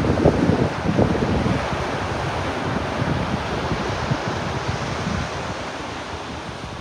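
Ocean waves washing up a beach, with wind buffeting the microphone; the wash fades off over the last few seconds.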